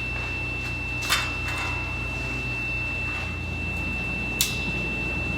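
Two sharp metallic clicks about three seconds apart as the frame parts of a metal bird cage are fitted and pinned together, over a steady thin high-pitched tone and a low hum.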